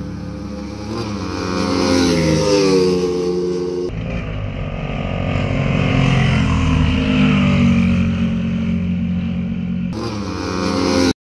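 Small single-cylinder motorcycle engines at full throttle in a drag race: first heard on board the ported, high-compression Suzuki Raider 150 Fi, its note climbing steadily through a gear. About four seconds in, the sound changes abruptly to the two racing bikes heard from the roadside as they approach at speed. The sound cuts off suddenly near the end.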